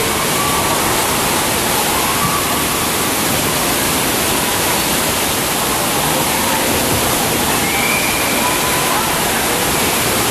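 Water slides' recirculating water rushing down the troughs and churning into the run-outs: a loud, even rush of water.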